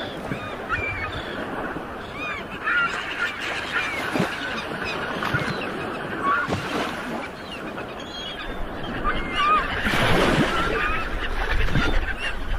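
A flock of gulls calling, many short squawking calls overlapping one another, over a background of wind and sea noise that grows louder in the last few seconds.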